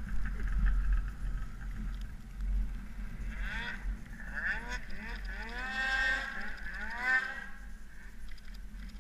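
Snowmobile engines: a steady low idling rumble, and in the middle another sled's engine revving up and down several times in a row as it climbs through deep powder, then dropping away.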